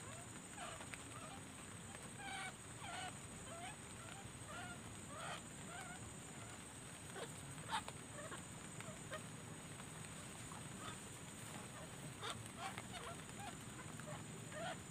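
White-breasted waterhen calls: a long series of short, harsh honking notes coming in irregular bursts, with a sharp knock about halfway through. A steady high-pitched tone runs underneath.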